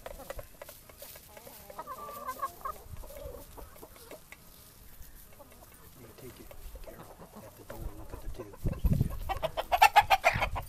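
Backyard chickens clucking softly, with one drawn-out call about two seconds in. Near the end comes a loud, fast run of clucks, just after a low bump.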